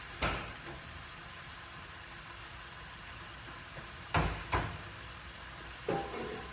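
Steady low noise of a stove with a covered frying pan of vegetables cooking on a lit gas burner. Sharp knocks sound over it: one near the start, two in quick succession about four seconds in, and one near the end.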